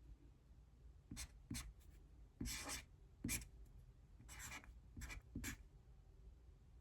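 Handwriting: a writing tool scratching out short, irregular strokes while working a fraction problem, with one longer stroke about two and a half seconds in.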